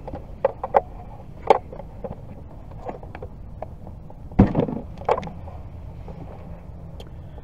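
Scattered plastic clicks and knocks as the lid of a 12-volt Igloo car refrigerator is handled and opened, with one louder thump about four seconds in.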